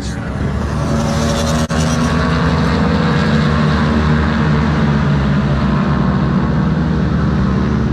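Several MotoAmerica Twins Cup race bikes' twin-cylinder engines running at low, fairly steady revs as the pack rides slowly by, many engine tones overlapping and drifting gently in pitch. The slow pace is taken for red-flag conditions.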